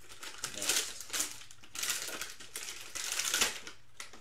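Foil wrapper of a Panini Mosaic football trading-card pack crinkling as it is handled, in a string of short, irregular rustles.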